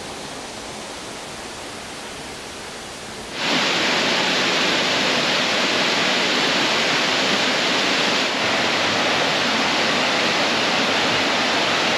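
Steady rush of falling water from the 16-metre Šum waterfall. It is quieter at first and becomes much louder about three seconds in, then holds as a steady rumble.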